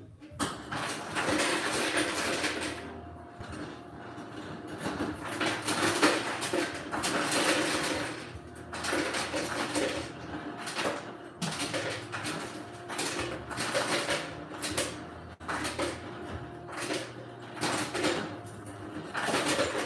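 Ice cubes clattering and rattling as ice is gathered, in a run of irregular bursts a second or two long with short gaps between them.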